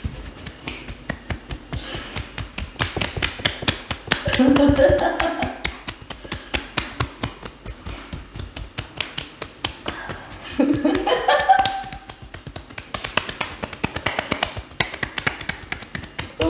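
Hands striking the body in quick percussive massage strokes, a rapid run of sharp slaps and taps, several a second. Two short pitched sounds come in about four and eleven seconds in.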